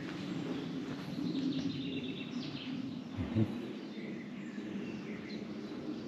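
Small birds chirping and singing in short rising and falling notes over a steady low background noise, with one short low thump a little past the middle.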